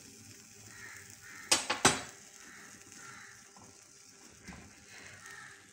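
Metal tongs clinking twice against an iron tawa, two quick ringing strikes about a second and a half in, over a faint steady hiss from the hot griddle.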